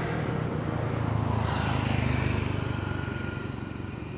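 Small single-cylinder petrol engine driving a long-tail propeller on a bamboo raft, running steadily at a low, even note and growing quieter over the last second or so.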